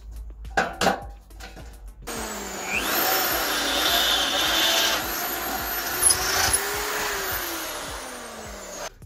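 A couple of metal knocks, then about two seconds in a corded electric drill starts up and bores a hole through a metal trailer ramp, its motor pitch rising as it spins up and sliding down as it winds down near the end.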